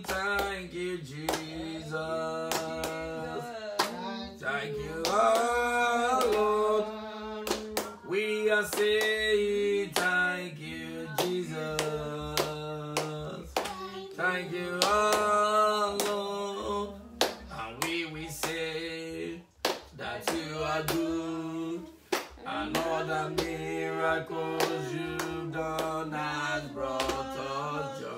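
A man singing a worship chorus unaccompanied, holding and sliding between notes, with his hands clapping along.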